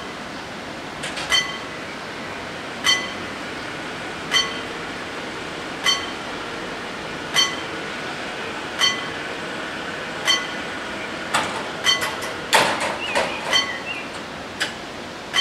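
Electric warning bell of an Italian FS 88 level crossing striking about once every one and a half seconds, each stroke ringing briefly. Near the end there is a cluster of clanks and rattles as the striped barrier booms come down and settle.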